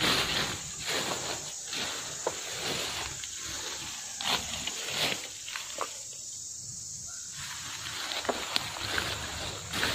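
Footsteps and rustling as someone pushes through dense ferns and brush. The noises come in irregular short scrapes, with a brief lull a little past the middle.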